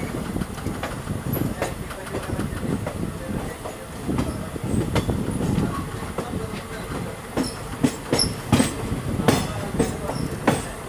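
Passenger train coach running along the track, heard through an open window: a steady rumble of wheels on rail. From about seven seconds in comes a quick, uneven run of sharp wheel clicks.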